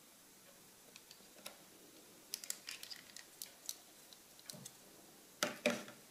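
Plastic photo tongs and developing trays being handled: a run of light, irregular clicks and taps, then two louder knocks close together near the end.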